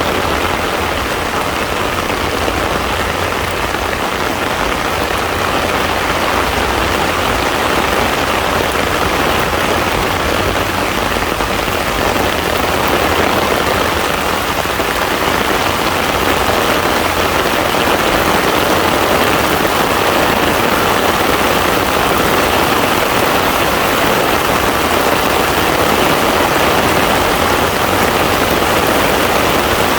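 Heavy rain falling on a pond, a dense, steady patter of drops striking the water.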